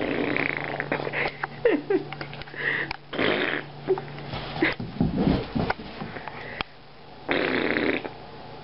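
Boxer dog blowing hard breaths through its nose in several bursts of half a second to a second, with a few brief whines in between.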